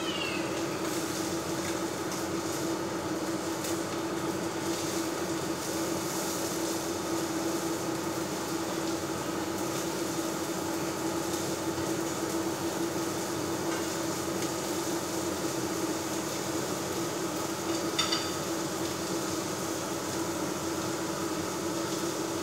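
Shrimp and fish frying in oil in a pan, a steady sizzle over a constant low hum, with a single sharp click about 18 seconds in.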